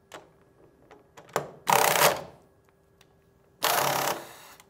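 Atlas Copco pneumatic pulse tool running down twice on a torque transducer, each run a loud burst of about half a second, with a few small clicks before the first. These are test rundowns to verify a newly raised torque setting.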